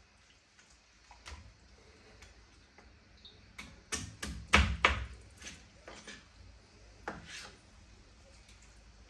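Scattered knocks and clinks of kitchen utensils and dishes on a countertop while raw chicken is being cut up, a quick run of the loudest knocks about four to five seconds in.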